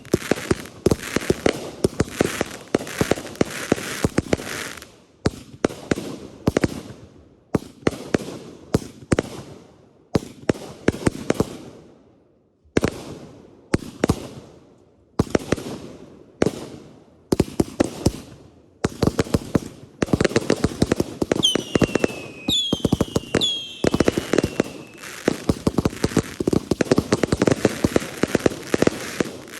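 Consumer fireworks going off: rapid volleys of sharp cracks and crackling in bursts with short gaps between them. About two thirds of the way through, a few whistles fall in pitch.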